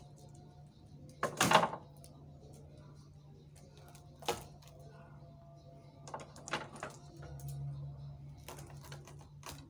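Sharp wooden and metal knocks and clatters from a wayang kulit puppet fight, the loudest a clattering burst about a second and a half in, then a single knock near four seconds and a few more toward the end, over a steady low hum.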